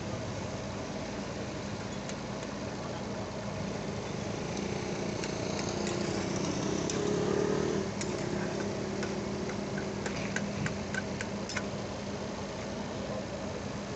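Metal spatula stirring noodles as they cook in liquid in a wok, with a run of sharp clinks of spatula on pan in the second half, over a steady engine-like hum.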